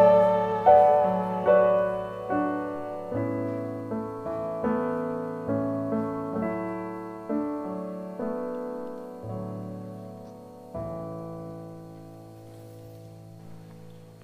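Digital piano playing a slow, gentle piece, with single notes and chords struck about once a second. The playing slows to a last chord a little under eleven seconds in, which rings and fades away.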